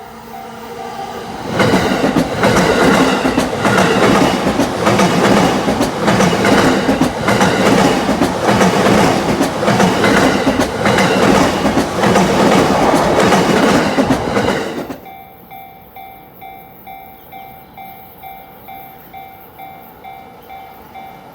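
Yamanote Line electric train passing over a level crossing, its wheels clattering over the rail joints for about thirteen seconds before the sound cuts off suddenly as it clears. The crossing's warning bell rings steadily at about two dings a second, masked while the train passes.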